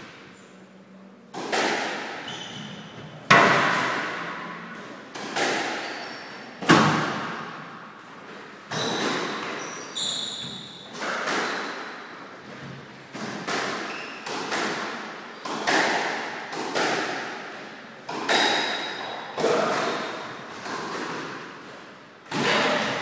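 Squash rally: the ball cracking off the racket strings and the court walls about once a second, each hit ringing out in the enclosed court's echo, with a few short high squeaks.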